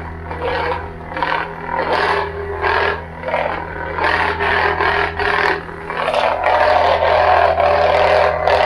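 Neopixel replica lightsaber's sound board playing a custom Qui-Gon Jinn soundfont: a steady low hum with SmoothSwing swooshes swelling and fading every half second or so as the blade is swung. About six seconds in, the swings turn louder and more continuous.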